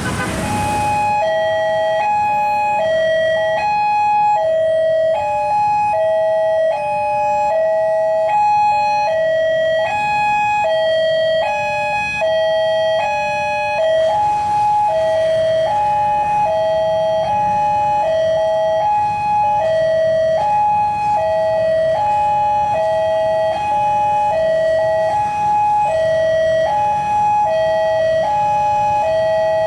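Railway level-crossing warning alarm sounding a steady electronic two-tone high-low signal, alternating about twice a second, with more than one alarm sounding out of step. It signals that a train is approaching the crossing.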